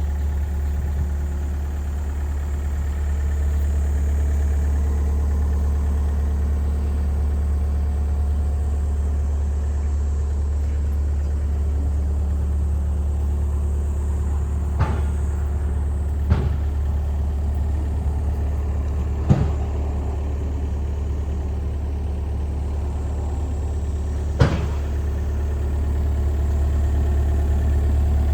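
Kobelco SK50SR-5 mini excavator's diesel engine idling steadily, a constant low hum, with four short sharp knocks in the second half.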